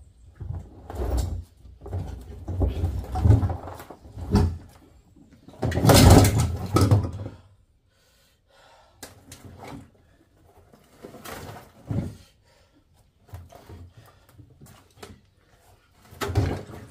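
Scrap air-conditioner metal being handled and loaded: a run of irregular clanks, thuds and scrapes, the heaviest about six seconds in, then lighter scattered knocks.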